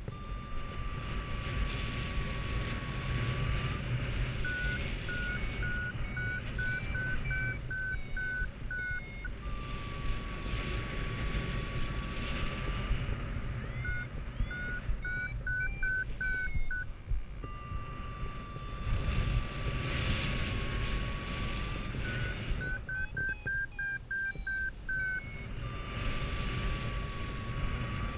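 Paragliding variometer alternating between runs of quick climb beeps, about two to three a second and speeding up and rising in pitch near the end, and a steady lower sink tone that sags slightly in pitch, as the glider passes through lift and sinking air. Airflow rumbles on the microphone throughout.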